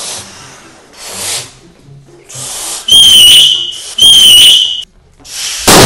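Short breaths blown into balloons, then two loud, shrill, steady screams of about a second each: the screaming-marmot meme sound effect. A loud rush of noise starts near the end.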